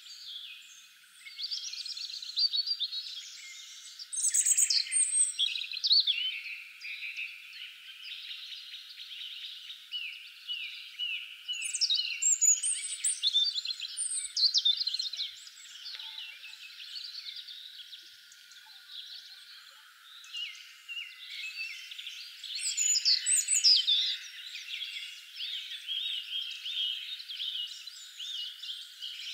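Several songbirds chirping and singing together in dense, overlapping calls, with louder bursts of song now and then. The sound is thin, with everything below a low-mid pitch cut away.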